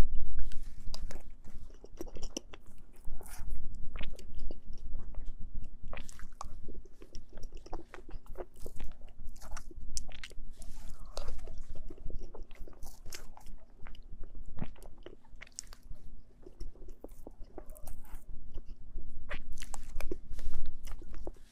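Close-miked mouth sounds of someone eating mousse cake: soft chewing, smacking and wet clicks in an irregular series throughout.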